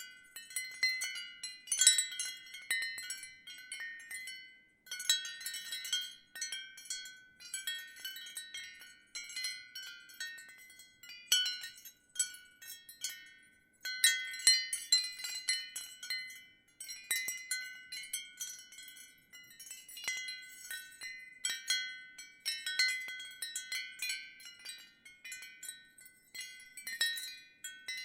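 Ceramic wind chimes tinkling in a gentle breeze: irregular clusters of ringing tones at several pitches, with short lulls about five and about fourteen seconds in.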